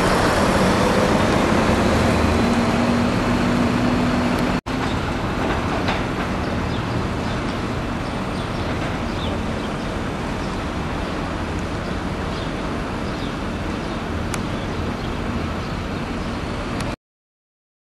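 Heavy diesel tractor-trailer running as an articulated tanker truck drives slowly past. There is a held engine tone in the first few seconds and a brief break about four and a half seconds in. The running noise then goes on steadily and a little quieter, and cuts off suddenly near the end.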